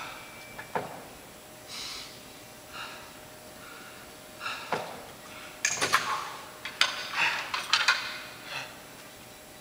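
A man breathing hard between sets, a few separate breaths. Then, from about six to eight seconds in, a run of sharp metallic clicks and clanks as a pair of block-style adjustable dumbbells is picked up off the floor and pressed overhead.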